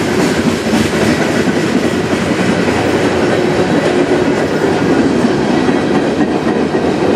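Freight train cars rolling past at speed: a loud, steady rumble of steel wheels on rail, with the clicking of wheels passing over rail joints. The cars are tank cars and centerbeam flatcars of a manifest freight train.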